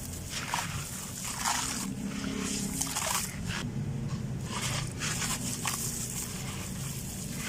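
Dry sand-cement chunks crumbling and crunching, a crisp gritty burst about every second.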